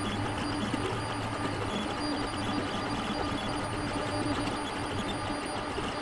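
Creality Ender-3 3D printer printing: its stepper motors whir as the print head moves over the bed, with its fans running, a steady mechanical sound.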